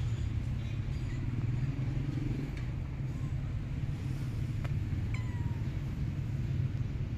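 Domestic cat meowing briefly, over a steady low rumble.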